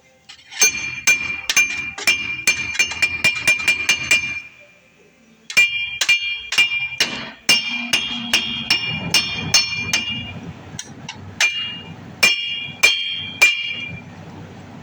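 Hammer blows on a rusted-on bolt-on wheel hub assembly, steel on steel with a ringing clang, to knock the stuck hub loose. The blows come in quick runs of about three a second, with a short pause about four seconds in and a few spaced blows near the end.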